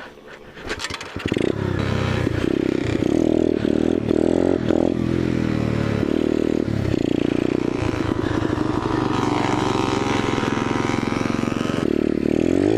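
Small dirt bike engine under throttle, coming in loud about a second in and revving up and down with a few brief let-offs as the bike rides through mud.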